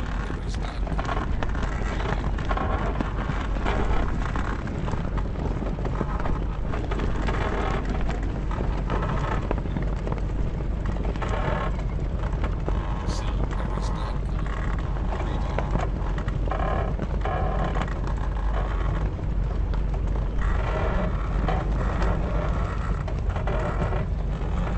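Sails flapping in the wind with a mast creaking: an irregular flapping over a steady low rumble.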